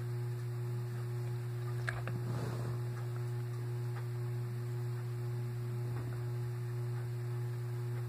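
Room tone dominated by a steady low hum, with a faint click about two seconds in.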